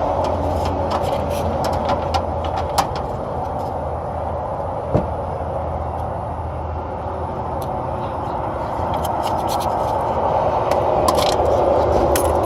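Steady mechanical drone with scattered small clicks and scrapes as a copper refrigerant line is bent in a hand tube bender.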